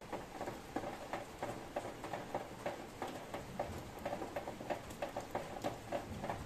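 Rain falling, heard as irregular taps of drops on a hard surface, several a second, over a faint steady hiss.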